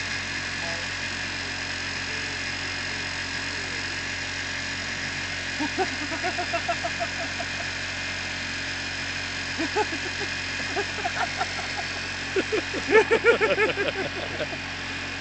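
Electric beard clippers running with a steady hum while a beard is shaved off. A few bursts of laughter break in, the loudest near the end.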